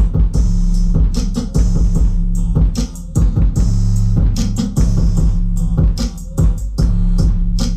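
Music with a steady drum beat played loud through two 12-inch subwoofers in a ported box, driven by a 1990s Select by Qupix two-channel car amplifier wired in stereo into a 2-ohm load per channel. The deep bass is the loudest part.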